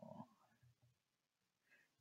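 Near silence: faint room tone, with the tail of a spoken word right at the start.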